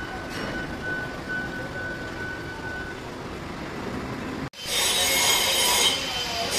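TIG welding arc on a 3-inch stainless steel pipe joint during the capping pass: a steady hiss with a faint, broken high tone. About four and a half seconds in it cuts out abruptly, and a louder noise with several high squealing tones takes over.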